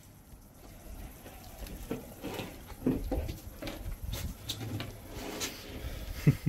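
Small, irregular handling and chewing noises as a slice of raw tuna sashimi is picked up and eaten, over a low wind rumble. A single sharp knock sounds near the end.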